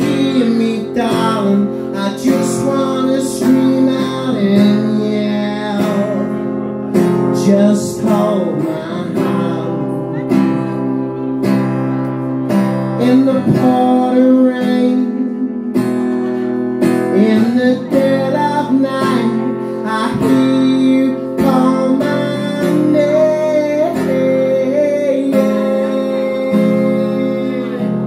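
Acoustic guitar strummed with a man singing over it.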